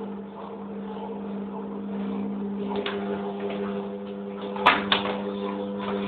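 Hoover Electra 1100F washing machine's motor humming steadily as it turns the drum in the rinse-and-spin stage, its tone shifting a little about halfway through. Two sharp clicks near the end are the loudest sounds.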